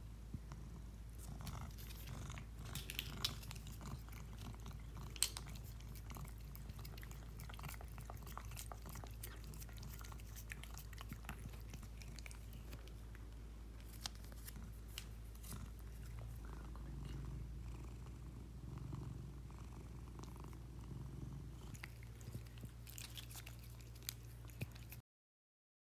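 Cat licking a squeeze-tube cat treat held out by hand: a long run of quick, wet tongue clicks and smacks. The sound cuts off suddenly near the end.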